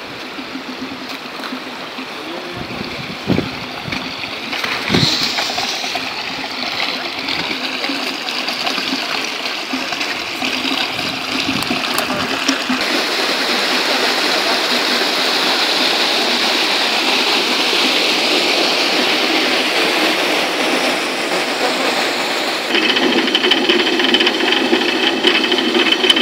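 Water rushing through a traditional water-powered flour mill, a steady rush that grows louder over the first fifteen seconds or so, with a couple of knocks a few seconds in. Near the end a louder, rhythmic mechanical rattle of the mill joins the water.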